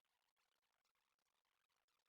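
Near silence, with only a faint hiss.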